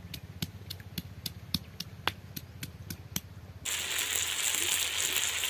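A run of sharp, evenly spaced ticks, about three a second, over a quiet background; then, about two-thirds of the way in, chicken pieces in masala start sizzling as they fry in an aluminium pot over a wood fire.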